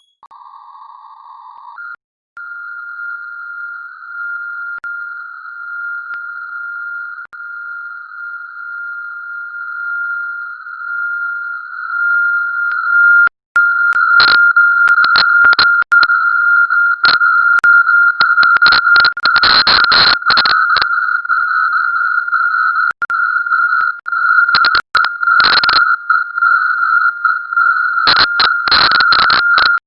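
A steady, high, whistle-like electronic tone from the CwGet Morse code program's sound output. It shifts pitch about two seconds in and grows steadily louder. From about halfway through it breaks into harsh crackling with clusters of clicks, which the uploader takes for an audio loop or feedback.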